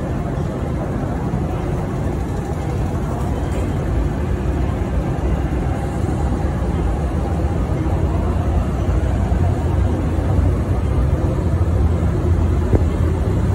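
MTR Kwun Tong Line CNR Changchun C-Train pulling out of the station, a steady low rumble of wheels and running gear that slowly grows louder as it picks up speed, heard through the platform screen doors.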